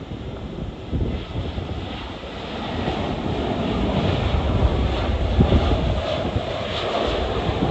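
Jet airliner engines passing, the rushing sound swelling from about three seconds in to a peak near the end, with gusty wind buffeting the microphone.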